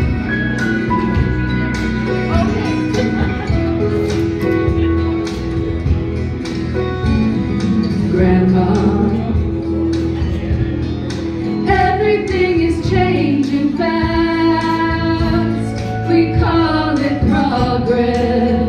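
Live country-style band with electric guitar accompanying two women singing in harmony; the voices come in strongly about twelve seconds in, over sustained held notes before that.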